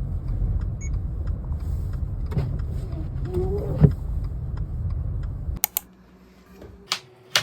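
Gusty wind rumbling on the microphone in a storm, stopping abruptly about five and a half seconds in. A few sharp clicks follow.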